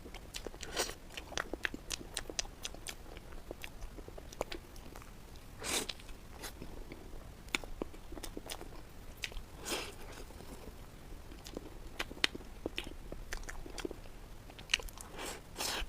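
Close-miked eating: steady chewing with many small wet mouth clicks, and three louder bites or crunches spread through.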